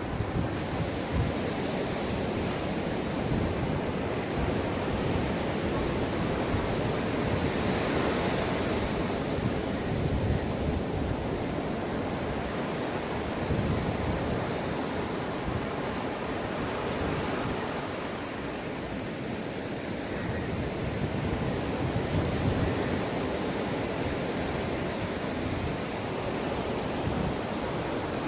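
Ocean waves breaking and washing up a beach: a continuous surf wash that swells louder a few times as waves come in and eases briefly past the middle.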